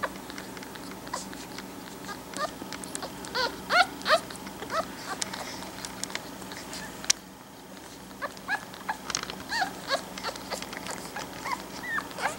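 Newborn pug puppies squeaking and whimpering while they nurse: many short, high squeaks that slide up and down, in two busy stretches with a quieter lull between them. A single sharp click about seven seconds in.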